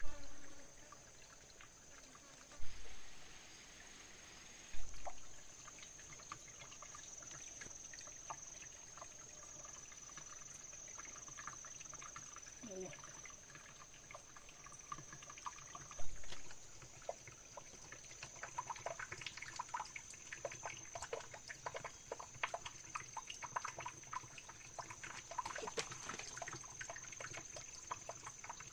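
Water trickling and splashing, with many small clicks and ticks that grow denser in the second half, and four dull thumps. A steady high-pitched tone sits under it all.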